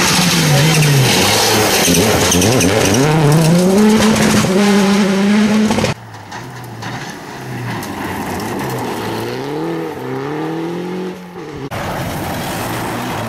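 Rally cars at full effort on a gravel stage: engines revving up and dropping through gear changes, with tyres skidding and spraying gravel. The sound is loudest for the first six or so seconds, then drops suddenly to a more distant car revving, and jumps back up near the end as another car passes close.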